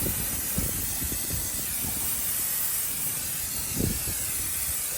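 Aerosol brake cleaner spraying in one long steady hiss.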